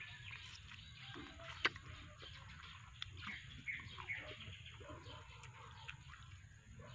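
Soft mouth sounds of eating ripe duhat (Java plum): sucking, lip smacks and small clicks. A few faint bird chirps come in about halfway through.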